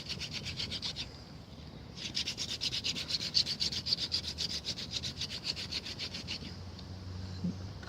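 Elder and clematis hand drill: a wooden spindle spun back and forth between the palms grinding into the hearth board, a quick, even rasping of several strokes a second. It breaks off briefly about a second in, starts again, and stops near the end once the ember is forming.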